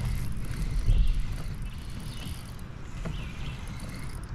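Spinning reel being cranked through a retrieve, under a low rumble of wind on the microphone that swells briefly about a second in.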